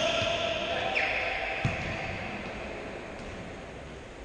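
Futsal play in an echoing sports hall: players' shouts trail off at the start, a short squeak comes about a second in, and a single ball kick lands a little after.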